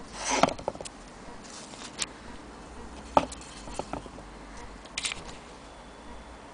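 Antique Willcox & Gibbs hand-crank sewing machine being turned by its crank, giving a few irregular clicks and light rattles from the hand wheel and mechanism. The loudest cluster comes about half a second in, with more around three and five seconds.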